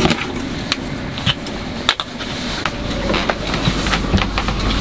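Irregular knocks and clicks of gear being handled, over a steady rumble that grows louder about three seconds in.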